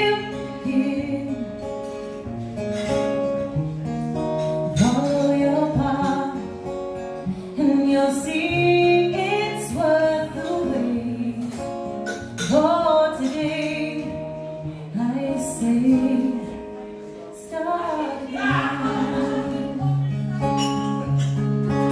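A woman singing a song while strumming an acoustic guitar, her voice rising and falling in long phrases over steady chords.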